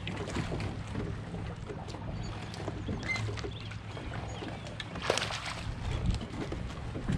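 Kayak on the water: light knocks and sloshing against the hull over a steady low hum, with a brief louder rush about five seconds in.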